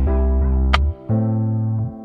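Background music: sustained keyboard chords over a deep bass, with one sharp percussive hit near the middle and a change of chord about halfway through.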